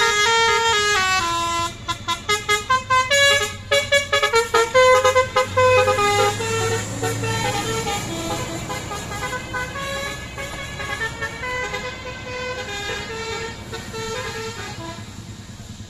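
A bus's multi-tone "telolet" horn playing a stepped tune, with a quick run of short toots about two to five seconds in. It then carries on playing and grows gradually fainter as the bus pulls away.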